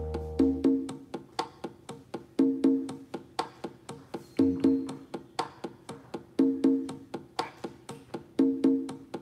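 Salsa rhythm from a practice app: a conga tumbao, with pairs of open drum tones about every two seconds and sharp clicks between them. A bass line stops just after the start, leaving the percussion on its own.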